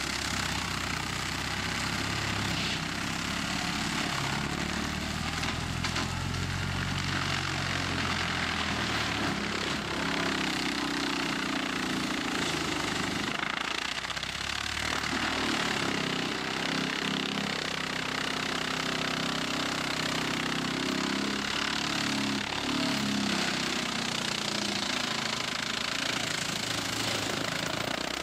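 Tractor engine running hard under load while a PTO-driven drum mulcher head shreds trees and brush: a steady heavy machine noise with a dense grinding hiss, the engine note shifting as the cutter bites into the wood.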